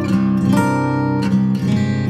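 Solo acoustic guitar playing chords, struck every half second or so, each left to ring into the next.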